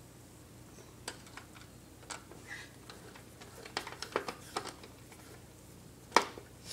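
Scattered light clicks and taps of hands working on an Xbox 360's parts as it is put back together: single clicks, then a small cluster, then one sharp, louder click near the end.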